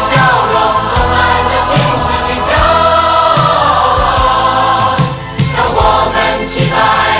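Music: a song with long held sung notes over a steady drum beat.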